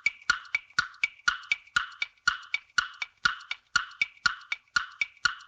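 Countdown-timer sound effect: steady wood-block-like ticks, about four a second, marking the time left to answer.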